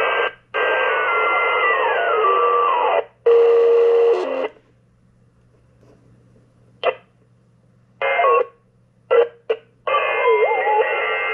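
Shortwave receiver audio from a Xiegu G90 HF transceiver in lower sideband, its dial being turned across the band. Bursts of static and garbled sideband signals cut in and out with near-silent gaps. A heterodyne whistle steps down in pitch about a second in, and another steady whistle runs through the last few seconds.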